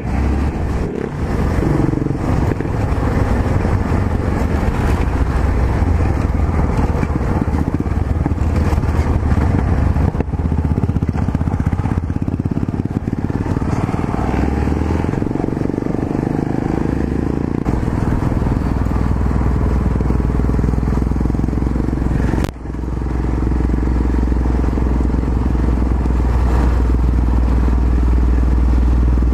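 Yamaha XT 660Z Ténéré's single-cylinder four-stroke engine running under way on a dirt road. The sound dips sharply for a moment about three-quarters of the way through.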